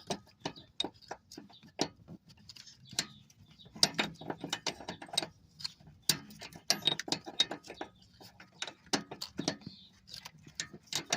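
Irregular metallic clicks and clinks of a stubby 18 mm wrench being worked a little at a time and repositioned on a power steering line fitting.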